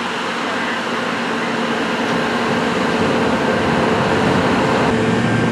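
Steady engine drone from the aerial lift truck running to power its boom, with a constant hum that swells a little partway through.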